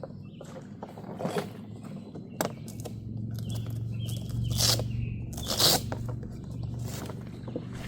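A series of irregular scrapes and crunches, with a low steady hum coming in about three seconds in.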